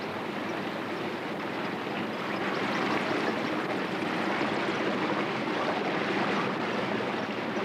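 River water flowing: a steady, even rush of water that grows slightly louder about two seconds in.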